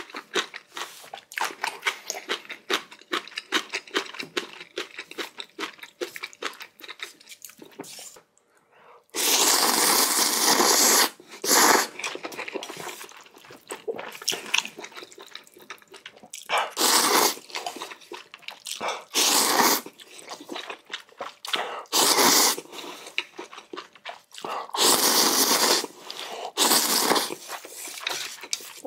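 Close-miked eating of spicy ramen: crunchy chewing clicks for about eight seconds, then about half a dozen loud noodle slurps of one to two seconds each, with chewing in between.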